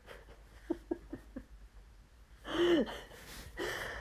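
Laughter: a quick run of soft giggles about a second in, then a louder burst of laughing a little after halfway and a shorter one near the end.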